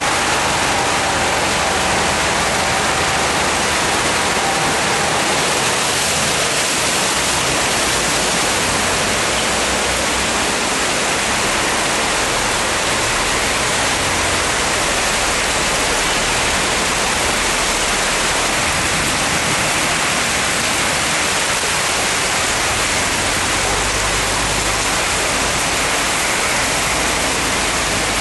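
Heavy rain and wind of an Adriatic thunderstorm (nevera): a steady, loud rushing hiss that does not let up.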